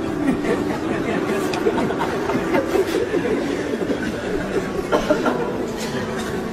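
A large crowd of men laughing and chuckling together, many voices overlapping.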